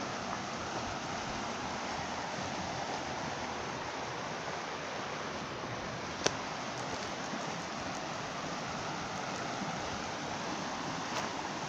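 The Rio Grande rushing over rocks in a shallow, fast riffle: a steady rush of water. One sharp click sounds about six seconds in.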